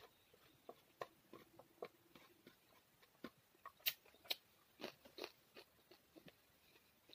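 A person chewing food close to a clip-on microphone: scattered soft wet clicks and mouth smacks, the sharpest around four seconds in.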